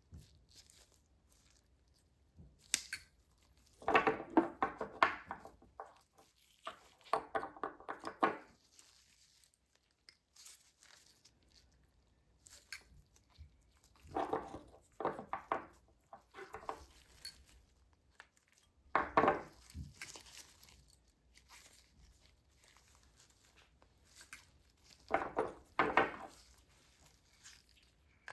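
Several short bursts of scraping and clicking as a stainless steel orthodontic wire is bent with pliers and tried against the teeth of a dental model, with quiet gaps between the bursts.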